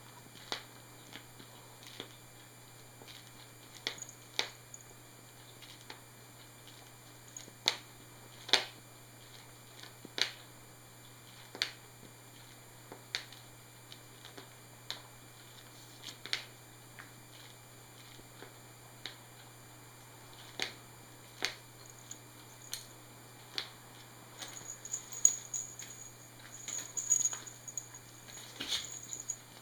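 Scattered taps and knocks from a kitten pouncing on and batting a squishy caterpillar toy, one every second or two, growing busier near the end.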